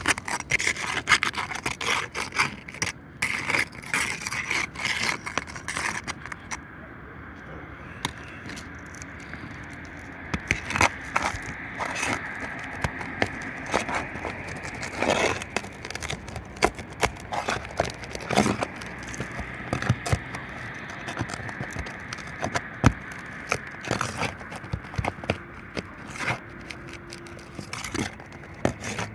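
Irregular scraping, clicking and knocking of hands and tools working on roof shingles: shingles being pried loose and handled.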